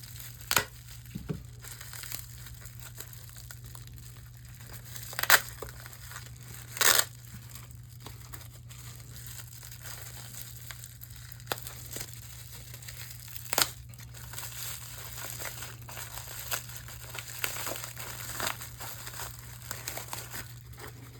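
Packing material crinkling and rustling as a mail package is unwrapped by hand, with a few sharp crackles, the loudest about five seconds in. A low steady hum runs underneath.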